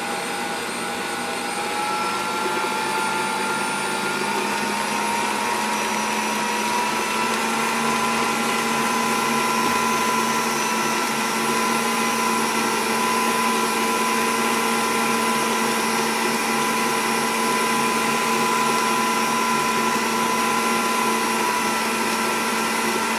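Stand mixer running at high speed, its wire whisk whipping cream and mascarpone in a steel bowl, a steady motor whine. The pitch rises slightly over the first several seconds, then holds steady while the cream thickens.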